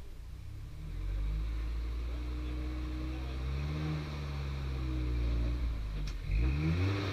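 Jeep Cherokee XJ engine under load while rock crawling, its note rising about a second in and revving up and down in the middle and again near the end. A single sharp knock comes a little after six seconds.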